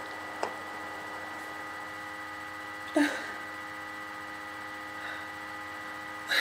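Steady electrical hum with several fixed whining tones from the recording gear, a small click about half a second in. A woman gives a short whimper with falling pitch about three seconds in and another at the end.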